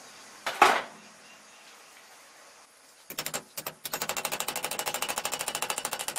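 Rapid, even tapping, about ten light strikes a second, as a new bearing is driven down onto an alternator's rotor shaft. A single sharp knock comes about half a second in, and a few spaced taps near the three-second mark lead into the fast run.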